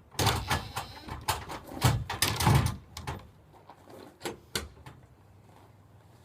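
A custom board-and-batten bifold garage door being worked by hand: its panels knock and rattle for about three seconds, followed by a few sharp clicks, likely from hinges and latch hardware.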